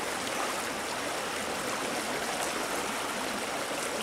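Shallow river flowing over a stony riffle: a steady, even sound of running water.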